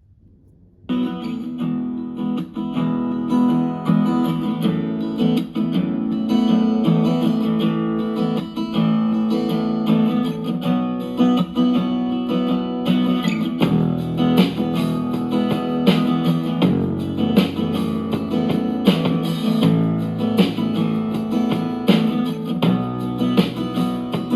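A guitar-led song played at maximum volume through a Zebronics Zeb County 3 portable Bluetooth speaker, starting about a second in. A deeper bass line comes in more strongly about halfway through.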